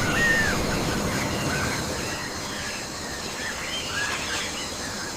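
Birds calling: short arched chirps repeated about once a second, the clearest near the start, over a steady background rumble.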